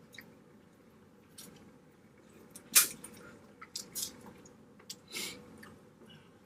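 Wet eating sounds from a seafood boil in sauce: scattered squishes and smacks while chewing, with a few sharp clicks, the loudest about three seconds in.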